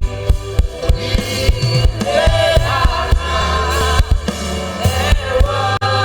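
Live gospel worship music: singers over a band with a drum kit and bass, the drums keeping a steady beat.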